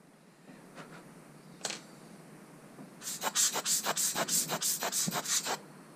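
Rubber bulb air blower squeezed rapidly, giving a quick series of sharp hissing puffs of air, about six a second, starting about three seconds in and lasting about two and a half seconds. A single light click comes shortly before.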